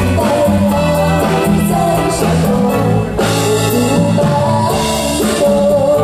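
A woman singing a Chinese song into a microphone over a live band, amplified through the stage sound system.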